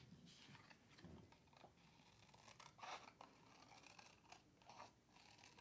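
Small scissors cutting a circle out of paper: faint, scattered snips of the blades through the paper.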